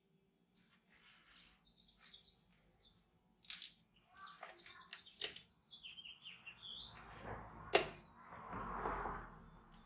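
Birds chirping, with several sharp clicks and a swell of rushing noise in the last few seconds.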